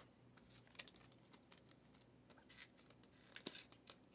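Near silence with a few faint, scattered clicks and light taps of trading cards being handled and flipped through, several coming close together near the end.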